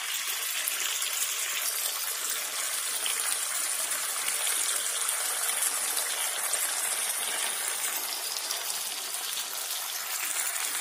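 Chicken pieces sizzling steadily in mustard oil and masala in an open kadai, at the kosha stage where the oil has separated from the spice paste.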